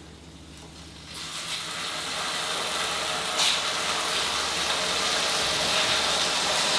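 Thin slices of beef fillet sizzling as they are laid into a hot pan with a little rapeseed oil. The sizzle starts about a second in and grows louder as more slices go into the pan.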